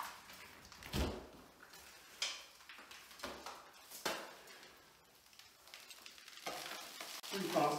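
A large cut-out piece of water-damaged gypsum drywall being handled and turned over: four short knocks over gritty crumbling and scraping from the soft, stained board.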